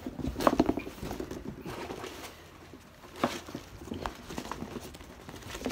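A large cardboard shipping box and its packing being pulled open and handled: irregular knocks, scrapes and rustles of cardboard. The knocks come in a cluster about half a second in and again about three seconds in.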